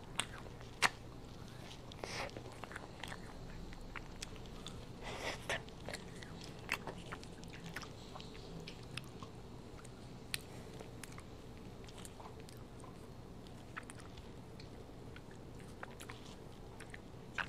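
A child eating a Pigcone ice-cream cone close to a clip-on microphone. Faint, scattered mouth sounds of licking, biting and chewing come at irregular moments, with a couple of longer, noisier sounds about two and five seconds in.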